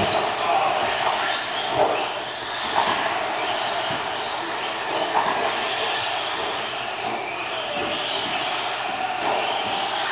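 Several electric 1/10-scale RC stadium trucks racing on a dirt track: a steady mix of high-pitched motor and drivetrain whine that rises and falls as they accelerate and brake, with tyres scrabbling on the dirt.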